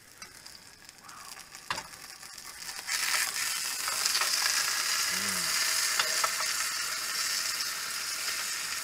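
A meat patty sizzling in a frying pan on a portable gas stove, quiet at first, then frying loudly from about three seconds in as it is worked with a fork, with a few light clicks of the fork against the pan.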